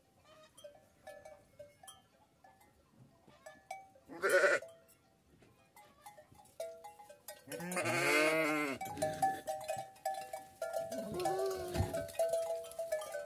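Kangal sheep bleating three times: a short call about four seconds in, a long loud wavering bleat about eight seconds in, and a shorter one near the end.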